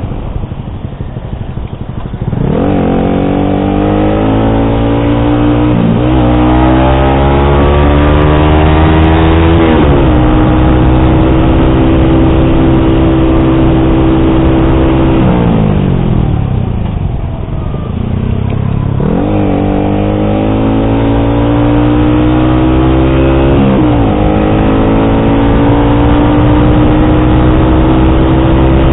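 Yamaha R15 V3's single-cylinder engine through an SC Project exhaust with dB killer, pulling up through the gears with the pitch climbing and dropping at each shift. About halfway through it eases off with the pitch falling for a couple of seconds, then accelerates up through the gears again.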